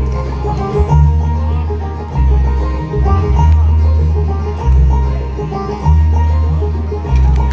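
Bluegrass band playing the instrumental close of a song with no singing: banjo picking over a steady walk of bass notes.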